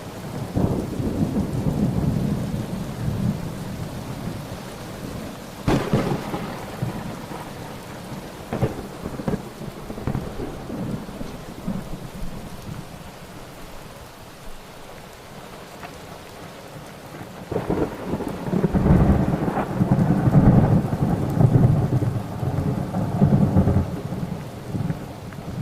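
Thunderstorm with steady rain. Thunder rumbles at the start, cracks sharply about six seconds in, then goes quieter before a long, loud rolling peal in the second half.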